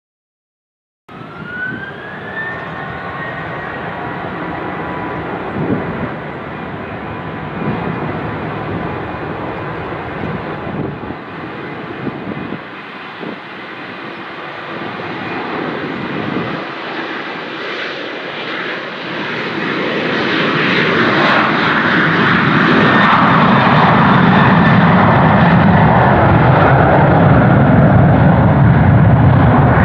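Boeing 737-800's CFM56 turbofan engines running with a steady whine, with a rising whine about two seconds in. From about twenty seconds in they throttle up to takeoff power and grow much louder into a full rumble as the jet rolls down the runway.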